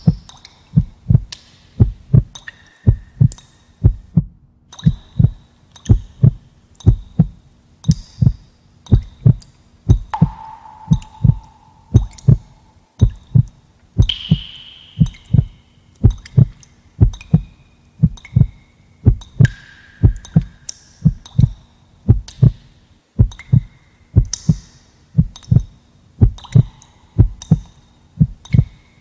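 Heartbeat sound effect: low double thumps (lub-dub) repeating steadily at about one beat a second. Faint short higher-pitched tones sound now and then over the beat.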